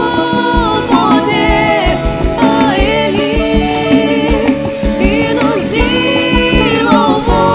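Forró gospel song playing: a band with a steady low drum beat about twice a second under sustained melody lines and voices.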